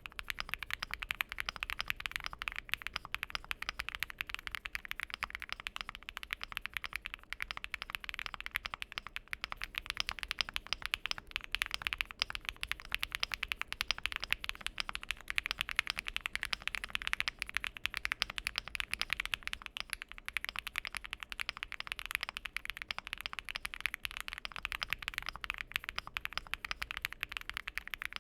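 Fast, continuous typing on a Weikav Lucky80 mechanical keyboard fitted with Bsun linear switches, an FR4 plate and full foam. The result is a dense stream of crisp key clacks.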